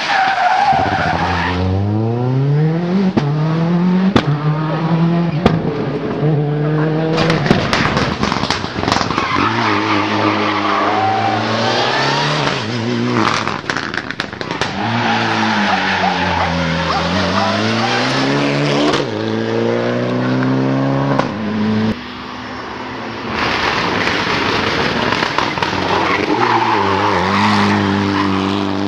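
Rally car engines at full throttle, climbing in pitch and dropping back again and again as they change gear, in several passes cut together with sudden breaks between them.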